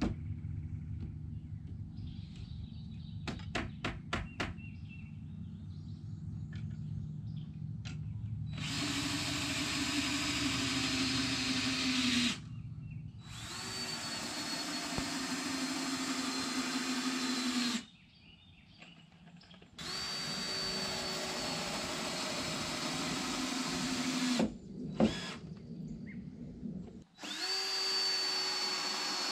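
A handheld power tool running in four runs of about four to five seconds each, with a steady high whine and short stops between them. A few quick knocks come before the first run.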